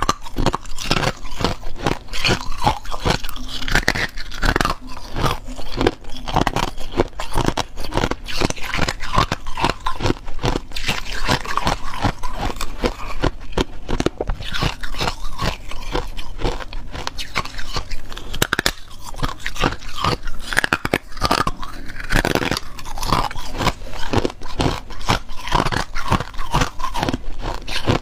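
Hard ice crunching and cracking between the teeth as a person bites and chews frosted ice sticks, close to a clip-on microphone, with rapid crackling snaps all through.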